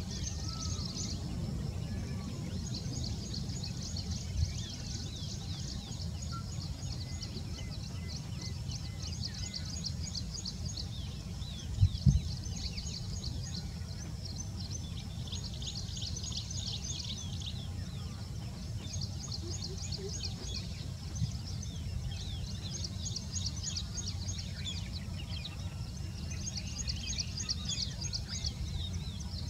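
Outdoor ambience: bouts of rapid, high-pitched ticking chirps over a steady low rumble, with a single thump about twelve seconds in.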